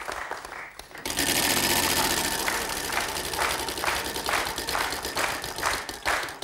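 Game-show prize wheel spinning, its pointer clattering over the pegs as a rapid run of clicks that starts suddenly about a second in and slows as the wheel loses speed.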